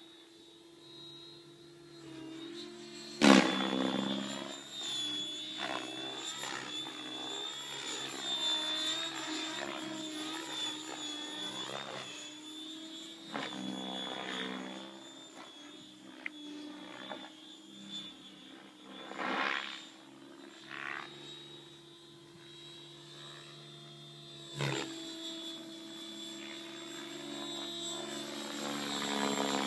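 Electric RC helicopter in flight, a Mikado Logo 600 with a 4035-560KV motor and Spinblades 610 rotor blades: a steady high whine from the motor and drive over the whir of the rotor. Four sudden loud rushes break in, and the sound swells as it passes close near the end.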